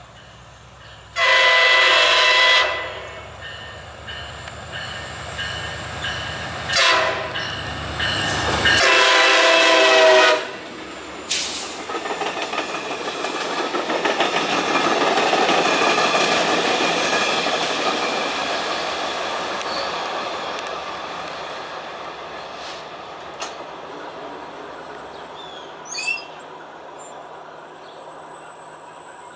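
MARC commuter train's horn sounding for a grade crossing over a low diesel rumble: a long blast, a short one and another long one. The train then passes close by, its wheels rushing and clattering on the rails, and the noise swells and slowly fades away.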